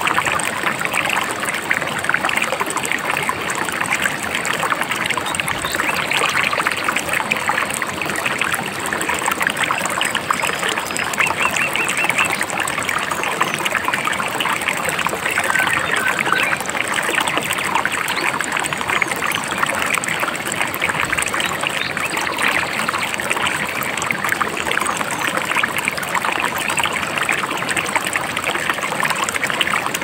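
A shallow river babbling over rocks: a steady, even rush of water with dense trickling and splashing.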